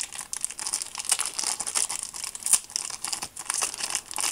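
Foil trading-card booster pack being torn open by hand, the wrapper crinkling and crackling in quick, irregular bursts.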